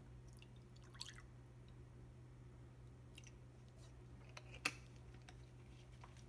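Near silence over a low steady hum, with a few faint ticks and a sharper one about three-quarters through: milk dripping into a glass cup just after it has been filled.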